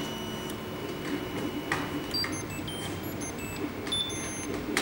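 FDM 3D printer running: its stepper motors whine in short tones that jump from pitch to pitch as the print head moves, over a steady low whir from the machine's fans.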